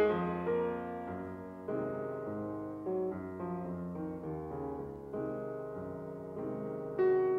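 Background piano music: a slow melody of held notes, quieter through the middle and louder again near the end.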